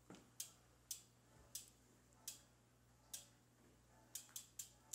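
About eight sharp single clicks, irregularly spaced, against near silence, with a quick cluster of them near the end.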